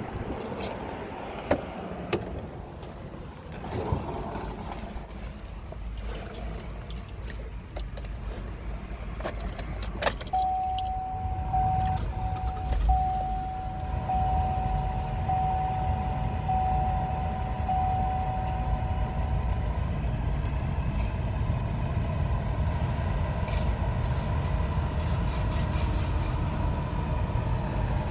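Clicks and knocks of the driver's door and keys over the first ten seconds. Then the 2012 Chevy Traverse's cabin warning chime sounds as a repeating tone for about nine seconds, while the 3.6-litre V6 idles with a steady low rumble.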